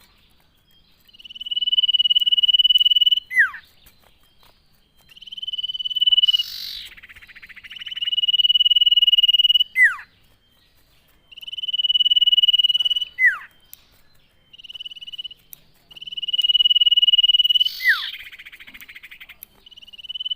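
Common iora (cipow) singing vigorously: six times, a long level high whistle held for up to about two seconds, most ending in a quick downward-slurred note. A harsh rasping sound breaks in twice, about a third of the way in and near the end.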